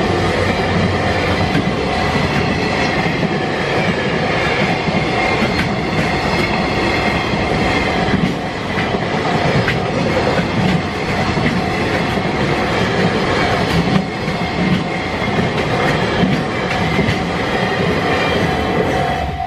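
Train passing over a level crossing at speed, with a loud continuous rumble and wheels clattering over the rail joints. Through it runs the level-crossing warning bell as a steady ringing tone, which is left on its own once the train has gone by at the end.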